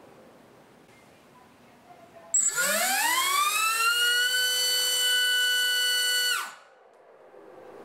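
Brushless 2306 2450KV FPV drone motor (HypeTrain Grinder) spinning a three-blade 5-inch propeller on a thrust stand at 4S: it starts suddenly about two and a half seconds in, its whine rising in pitch for a second or so up to full throttle, holds steady for about four seconds, then cuts off quickly.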